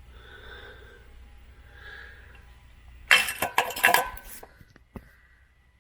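Metal hand tools clinking and clattering as they are handled, a burst of about a second starting three seconds in, then a single click.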